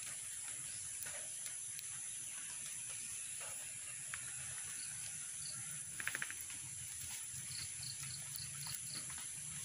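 Insects droning steadily with a high, even hum, over faint clicks and rustles of split-bamboo slats and plastic tying strap being handled. About six seconds in there is a short rapid rattle, and near the end a run of short high chirps, about four a second.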